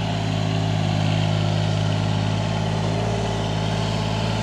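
Yanmar mini excavator's small diesel engine running steadily while the machine digs a trench.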